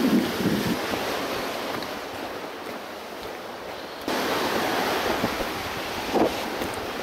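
Rough surf washing against the rocks and up the beach, with wind blowing on the microphone. The wash cuts abruptly to a louder level about four seconds in.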